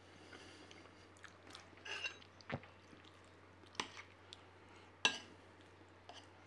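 Eating sounds: a few sharp clinks and scrapes of a knife and fork on a plate, the loudest about five seconds in, with faint chewing. A low steady hum runs underneath.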